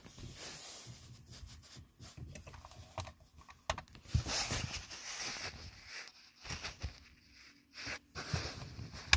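Handling noise: irregular rustling with scattered light knocks and clicks.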